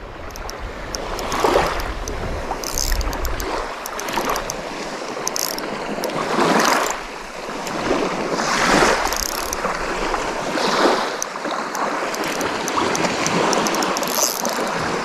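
Small waves washing up a sandy beach, the wash swelling and fading every couple of seconds, with fine clicking from a spinning fishing reel being wound in.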